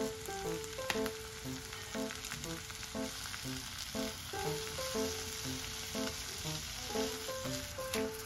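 Kale, greens and sliced mushrooms sizzling in a frying pan as they are stir-fried and turned with wooden chopsticks, with a few light clicks. Soft background music with a simple melody plays over it.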